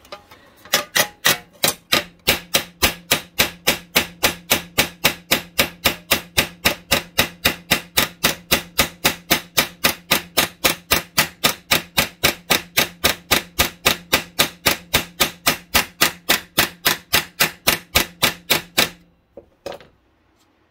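Hammer rapidly planishing a MIG weld bead on a steel sheet held over a bench vise: an even run of about four blows a second, with a low steady ring from the struck metal. The weld is flattening out without splitting. The blows stop near the end, followed by one last strike.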